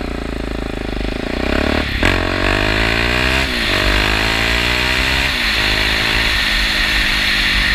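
KTM 690 Duke's big single-cylinder engine through a decat pipe and Sebring slip-on exhaust, pulling away from a stop and accelerating up through the gears. The revs climb and then drop at each of about four upshifts.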